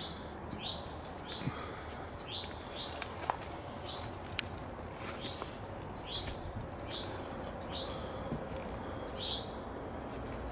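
A bird repeating a short, down-slurred chirp about once or twice a second over a steady high-pitched insect drone, with scattered light clicks.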